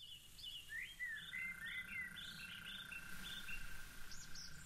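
Small birds chirping, a quick run of short repeated notes, faint, with a steady high thin tone held underneath from about a second in.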